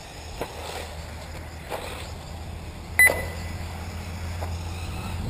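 One short, sharp electronic beep about three seconds in, typical of a race lap-timing system as an RC buggy crosses the timing line, over a steady low hum and a few faint knocks.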